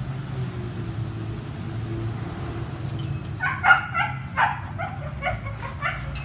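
A dog yipping and barking in a quick run of short, high calls that begins about halfway through, over a low steady hum.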